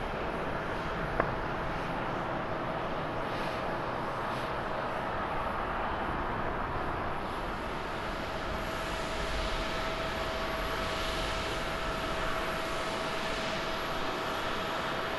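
Jet noise from an ANA Boeing 787's Rolls-Royce Trent 1000 engines at takeoff thrust as the airliner climbs away after departure. It is a steady rush with a steady whine through it. There is one sharp click about a second in.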